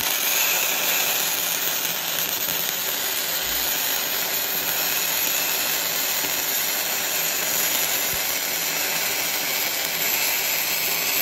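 Flux-core MIG welding arc from a YesWelder MIG-205DS Pro: a steady, unbroken sizzle of the wire burning into steel plate.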